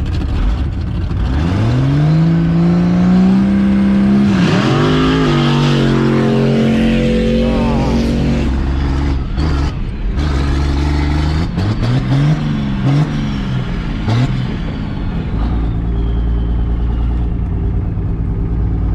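Diesel truck engine revving hard and accelerating, its pitch climbing twice, with a faint high whistle sliding down near the end.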